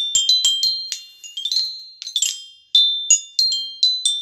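Small metal chimes rung by hand: bright, high ringing tones of a few different pitches, struck irregularly about three or four times a second, each ringing on and fading.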